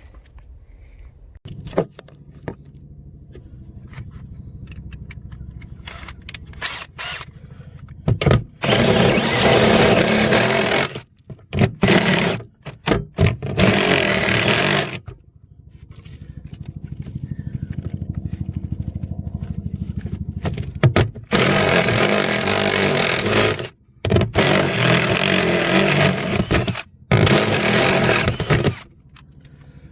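A power tool run in repeated bursts of two to three seconds, starting and stopping abruptly, with a steadier lower hum that swells in between.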